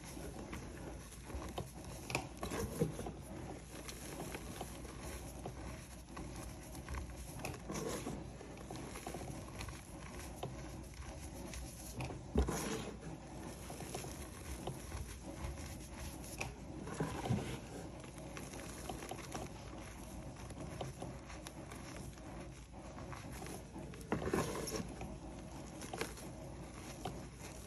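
Hands squeezing and crumbling grey reformed chalk powder: a soft, continuous crunching and trickle of falling powder, with louder crunches every few seconds.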